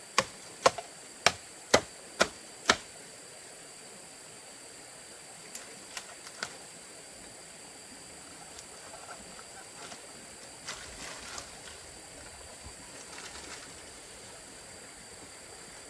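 Blade chopping at a bamboo shoot: six sharp strikes about two a second, stopping about three seconds in. After that come a few faint knocks and rustles over a steady high-pitched background whine.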